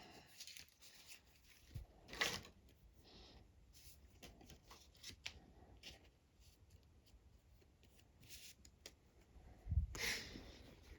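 A trading card and a plastic card holder being handled: faint rustling and small clicks as the card is worked into the protective case, with a louder rustle about two seconds in and a soft bump and rustle near the end.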